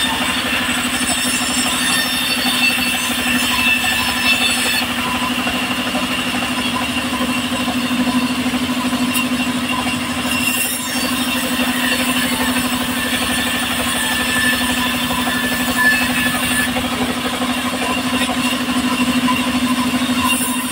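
Engine-driven sawmill saw running steadily with a constant hum while a wooden plank is pushed through the blade.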